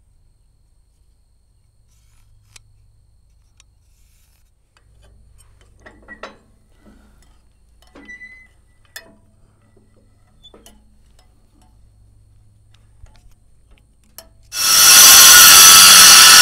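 Faint scattered clicks and knocks of tools and metal being handled, then near the end a power tool starts abruptly and runs very loud.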